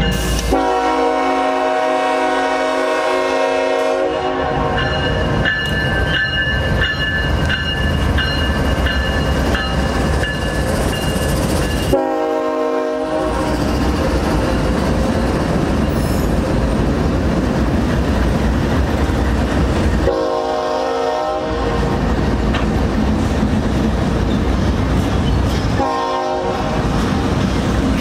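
Union Pacific freight train's diesel locomotives passing close by with a continuous heavy rumble and wheel noise on the rails. The locomotive horn sounds a long chord for the first four seconds, then shorter blasts about 12, 20 and 26 seconds in.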